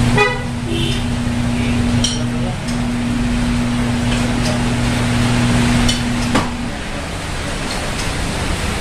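Tire changer's electric turntable motor humming steadily as it turns the wheel against the mount/demount head, stopping with a sharp knock about six and a half seconds in. A quick run of clicks at the very start.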